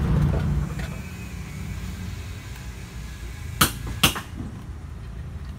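Two sharp knocks, about half a second apart, as a scoop of wet cement mortar is dumped onto a concrete pot-foot form. A low rumble fades out within the first second.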